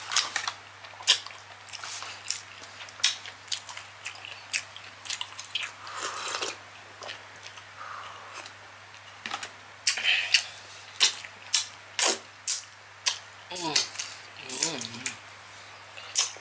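Close-up eating sounds from a person eating saucy Cajun seafood by hand: wet lip smacks, chewing and finger-sucking make sharp, irregular clicks several times a second. There are a couple of brief voice sounds near the end, over a steady low hum.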